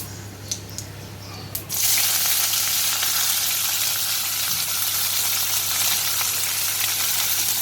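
Chopped onion hitting hot oil in a kadai: a few light clicks, then a sudden loud, steady sizzle of frying from about two seconds in.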